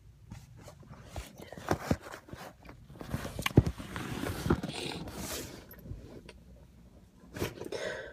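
Handling noise from a phone being moved and set in place: a string of rubbing, scraping and knocks on the microphone, with a last short burst near the end.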